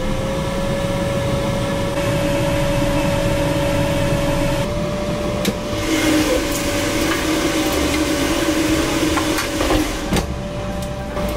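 Air fryer's fan running with a steady whir of air and one constant humming tone. There is a click about five and a half seconds in and a knock about ten seconds in as the basket is pulled out and slid back in.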